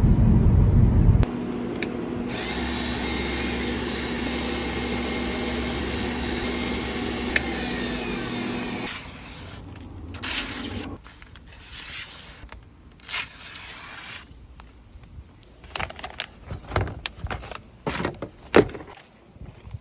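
A power tool's electric motor hums steadily with a grinding hiss for several seconds, then stops. Scattered sharp clicks and knocks of handling follow.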